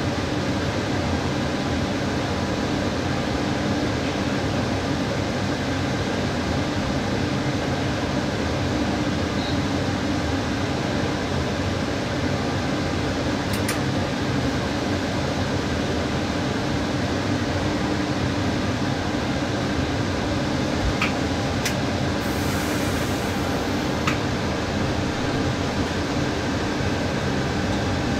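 Steady hum of a train's driver's cab, its ventilation and on-board equipment running while the train stands at a station. A few faint clicks come in the second half, with a brief hiss about two-thirds of the way through.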